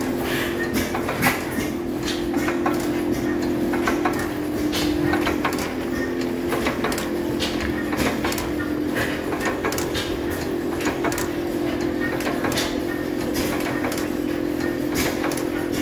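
Hit-and-miss stationary engines running together, with irregular sharp knocks over a steady hum.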